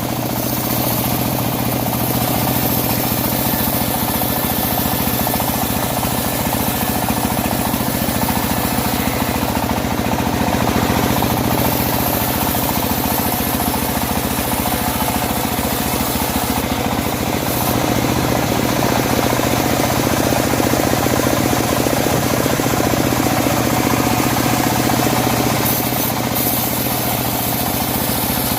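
Homemade bandsaw sawmill running with a steady, loud engine drone throughout, as it saws teak logs.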